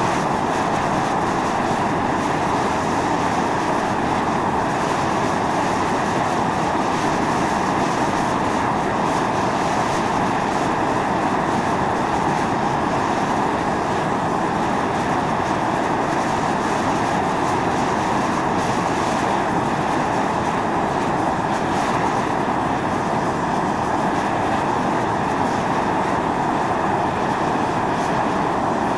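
Volcanic fumarole vents at Mt. Io (Atosanupuri) jetting steam and gas in a steady, continuous roaring hiss.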